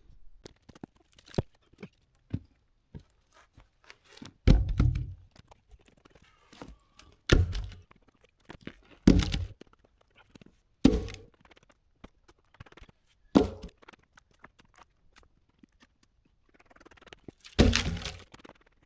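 Brush and branches being handled and thrown aside, giving a series of thuds and cracks. About six loud thuds come a second or two apart, from about four seconds in, with faint snapping twigs between them.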